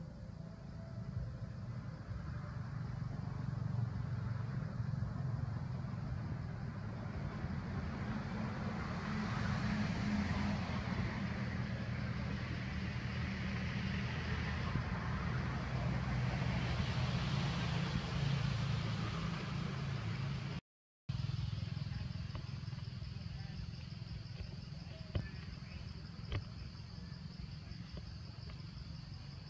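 Low outdoor background rumble with a hiss that swells and fades over about twenty seconds. After a brief dropout, a steady high-pitched insect drone sets in, with a few faint clicks near the end.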